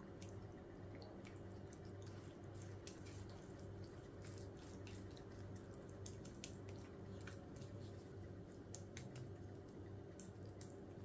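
Faint, scattered soft clicks and wet scrapes of a wooden spoon spreading minced-meat filling over a flatbread on a plate, over a steady low hum.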